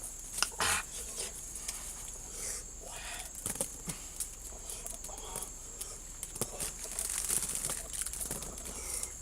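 Insects calling as a steady high-pitched drone, with scattered rustles and clicks of handling on top.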